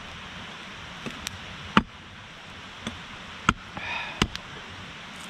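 Axe blows chopping dry firewood logs: a series of sharp, irregular knocks, the loudest about two, three and a half and four seconds in.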